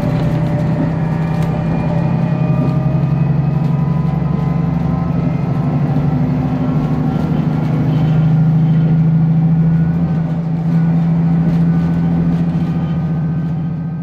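KiHa 54 diesel railcar running along the line, heard from on board: a steady low engine drone with fainter whines above it that slowly rise in pitch.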